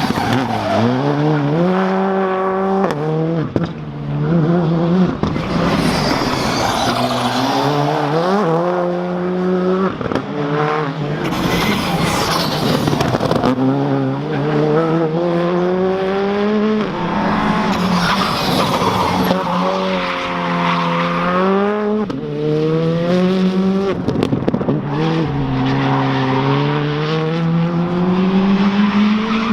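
Skoda Fabia R5 rally car's 1.6-litre turbocharged engine driven hard, its pitch climbing through the gears and dropping at each shift, easing off and picking up again several times. Bursts of rushing noise come in between the pulls.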